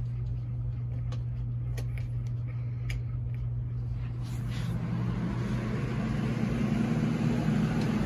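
Box fan starting up: after a few handling clicks, the rush of its spinning blades builds from about four seconds in and keeps getting louder, over a steady low hum.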